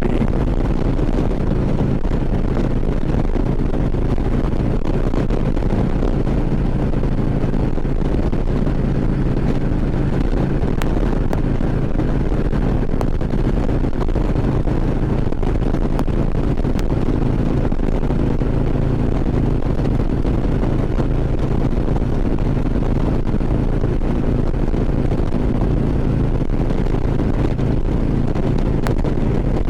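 2014 Harley-Davidson Ultra Classic Limited's V-twin engine running steadily at cruising speed, with wind rushing over the helmet microphone.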